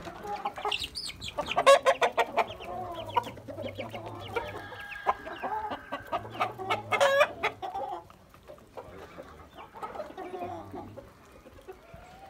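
Aseel chickens clucking, with many sharp clicks and knocks among the calls; the sound grows quieter after about eight seconds.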